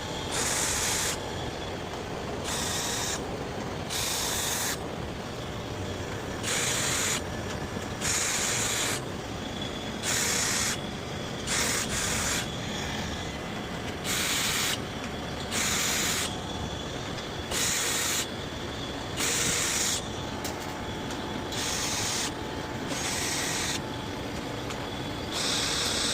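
Short bursts of hissing, each under a second, repeating every second or two over a steady low background noise.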